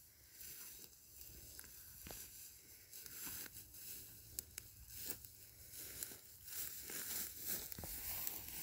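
Tall dry grass rustling and crackling as someone walks through it and brushes it aside along the bottom of a fence, getting louder in the second half.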